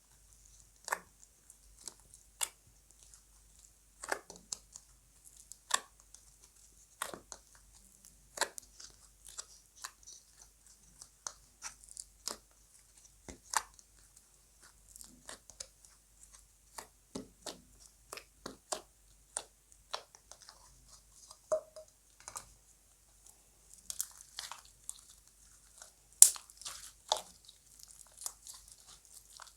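Slime being mixed and kneaded by hand, making a run of sticky pops and crackles at an irregular pace of roughly one to two a second. One pop near the end is louder than the rest.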